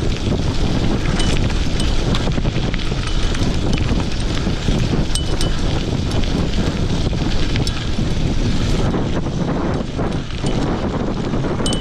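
Wind buffeting the microphone while a mountain bike descends a rough gravel track, with scattered sharp clicks and clatters from the bike and stones under the tyres.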